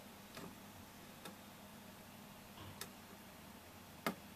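Four faint clicks of a metal probe tip pushing against the pins of a surface-mount shift-register chip on a circuit board, testing whether the pins are soldered. The last click, about four seconds in, is the loudest.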